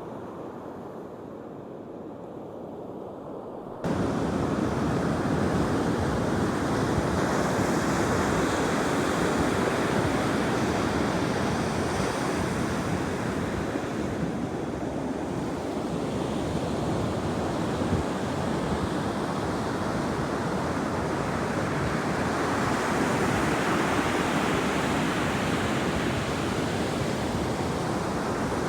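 Ocean surf rushing and washing onto the beach as a steady, loud wash of noise. It comes in abruptly about four seconds in, after a quieter, duller stretch.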